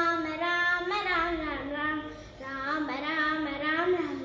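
A young boy singing a Ram bhajan solo in Carnatic style. He holds long notes and bends the pitch in sliding ornaments, with a short break between phrases about two seconds in.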